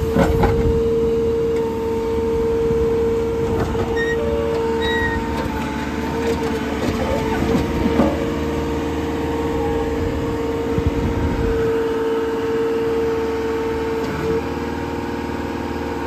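2016 JCB 3CX backhoe loader's four-cylinder diesel engine running under hydraulic load as the hoe and loader are worked, with a steady high whine and a few knocks, one near the start and one about eight seconds in.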